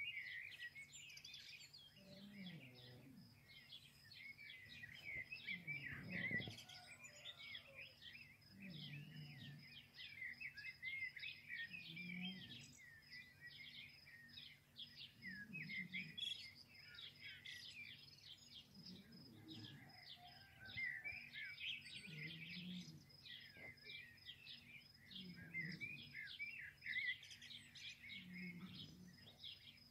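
Faint chorus of small birds chirping and twittering continuously, with a soft low sound repeating about every three seconds beneath it.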